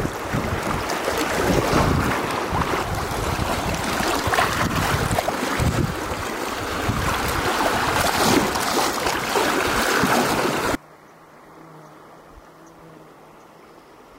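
Wind buffeting the microphone over rushing water, loud and gusty. About eleven seconds in it cuts off abruptly to a much quieter faint, steady low hum.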